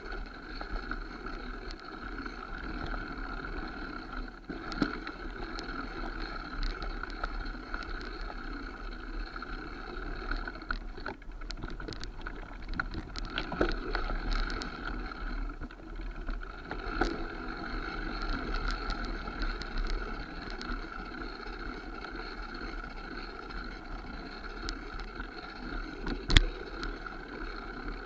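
Mountain bike riding over a rooty forest dirt trail: steady tyre and wind noise with frequent small rattles and knocks from bumps, and one sharp, loud knock near the end.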